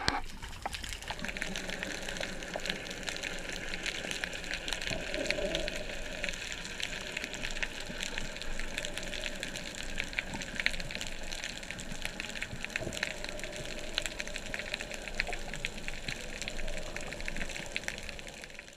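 Underwater ambience recorded by a camera in its waterproof housing: a steady hiss with dense, fast crackling clicks throughout.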